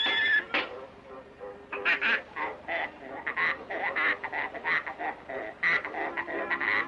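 A rapid series of short animal calls, about three a second, beginning nearly two seconds in after a single sharp call near the start.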